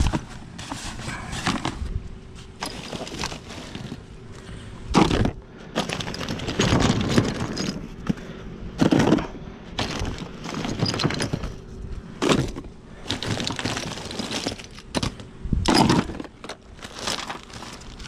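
Loose shotgun shells clattering and rattling against each other as gloved hands scoop them up out of a dumpster and drop them into a plastic tub, in repeated bursts every second or two, with black plastic bags rustling.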